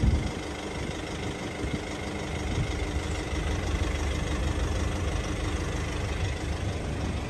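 Car engine idling: a steady low hum with a faint steady whine above it.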